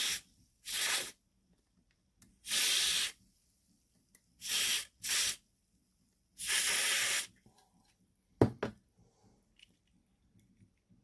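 Aerosol cleaner sprayed through a thin extension straw into the motor of an Airfix model locomotive's tender drive, in about five short bursts, flushing the commutator because the motor cannot be turned to clean it by hand. A couple of sharp clicks follow about eight and a half seconds in.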